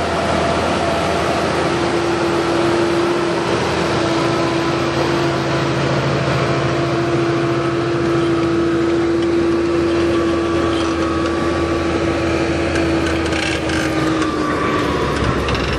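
Tractor engine running steadily under load while pulling a mouldboard plough, with a steady whine that sags slightly near the end, over the hiss of soil being turned.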